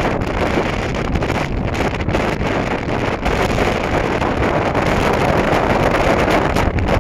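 Wind buffeting the microphone aboard a boat under way, a steady rushing with constant low flutter over the noise of the boat moving through the water.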